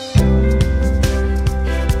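Background music with a steady beat and bass line, coming in loud a moment in after a brief lull.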